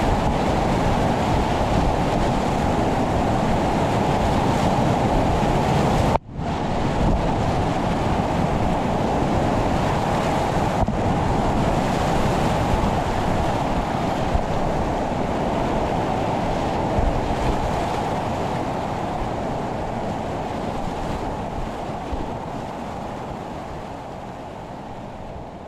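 Rushing whitewater of a steep boulder-garden creek, a loud steady rush that cuts out briefly about six seconds in and fades away over the last several seconds.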